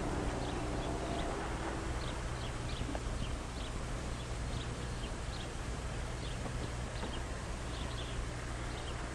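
Faint short high chirps at irregular intervals, like small birds, over the steady low hum and hiss of an old film soundtrack.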